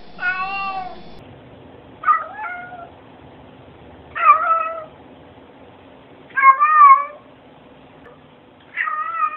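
Cats meowing: one longer meow near the start, then four shorter meows from a black cat, about two seconds apart.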